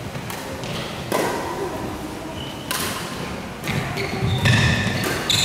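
Badminton rackets striking a shuttlecock in a doubles rally: several sharp hits about a second apart, each ringing on in the echo of a large hall.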